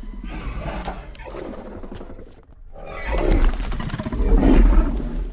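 Paradeinonychus dinosaur call sound effect: two growling roars with a deep rumble underneath. The first lasts about two and a half seconds; after a brief break comes a louder second roar that cuts off suddenly.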